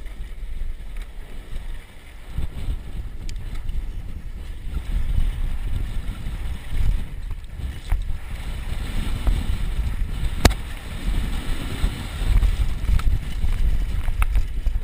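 Wind buffeting a helmet-mounted GoPro's microphone at speed on a mountain bike, with the rumble and rattle of the bike over a rough dirt trail. A few sharp clicks or knocks come through, the loudest about ten seconds in.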